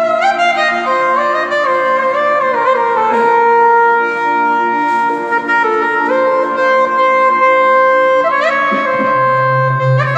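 Yamaha PSR-A3000 Oriental arranger keyboard played live: a single-line lead melody that slides between notes over a held chord. A low bass note comes in near the end.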